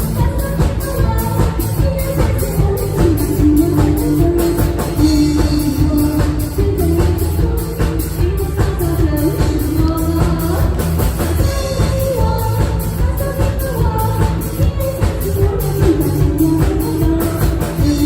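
A live band playing a pop-rock song with a steady drum-kit beat and a voice singing the melody.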